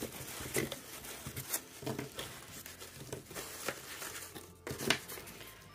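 Hands rummaging through starch-based packing peanuts in a small cardboard box: irregular rustling and crinkling, with a few sharp clicks as small wrapped paint pans are picked out.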